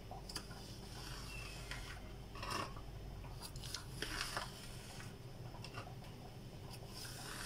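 Knife slicing a cucumber lengthwise on a plastic cutting board: a few faint, irregular cuts and taps, the strongest about two and a half and four seconds in, over a low steady hum.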